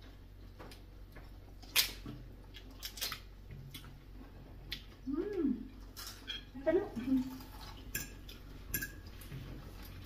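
Scattered clinks and taps of cutlery on plates during a meal at the table. A couple of short hummed vocal sounds come about halfway through.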